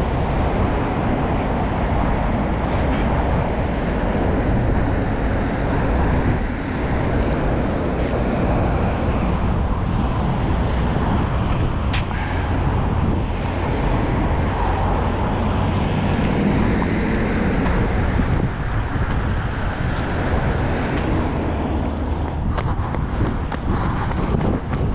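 Steady rumble of wind buffeting the microphone, mixed with road traffic noise.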